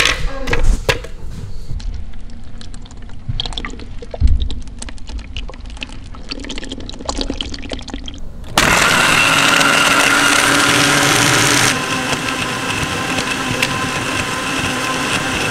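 Strawberries dropped onto ice in a blender jar with scattered knocks, then liquid poured in; a bit over halfway through, the blender starts with a sudden loud steady whir, crushing ice and strawberries, and settles a little quieter about three seconds later.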